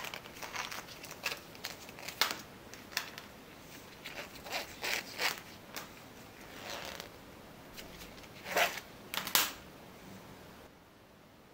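A nylon NATO strap being pulled through and out from under a watch case's metal spring bars: a run of short scraping strokes and light clicks as the webbing slides against the metal. The loudest strokes come near the end, and the sound stops about a second before the close.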